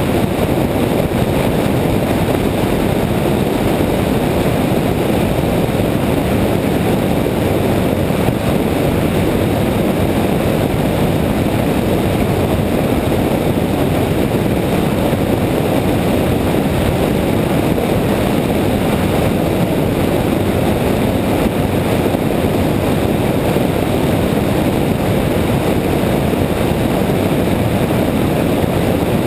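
Steady wind rush and road noise of a car driving, picked up by a camera mounted on its hood.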